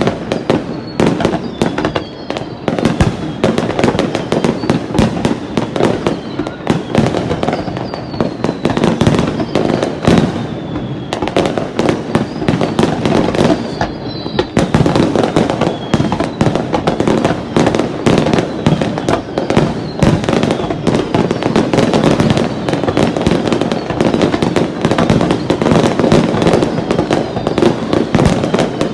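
Fireworks display in a dense barrage: rapid, overlapping shell bursts and crackling that start suddenly and carry on without a break, with a few faint downward-sliding whistles.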